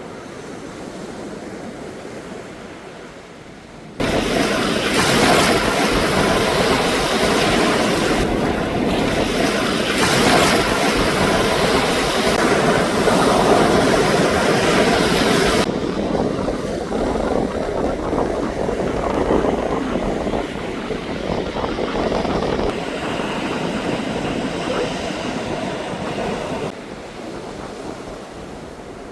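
Sea waves washing onto a beach, a steady rushing noise. It jumps up suddenly about four seconds in, eases somewhat around sixteen seconds, and drops back near the end.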